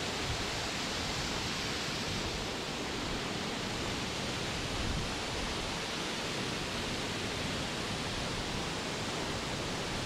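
Waterfall pouring down a rock face into a pool close by: a steady, unbroken rush of falling water.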